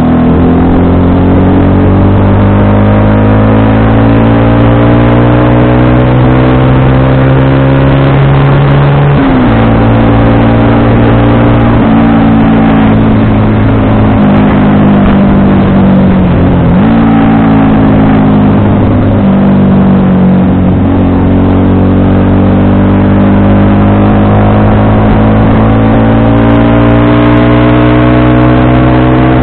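FKM Victorino 250i V-twin motorcycle engine under way: its pitch climbs slowly under throttle, drops with an upshift about nine seconds in, dips briefly twice later on, then climbs gently again.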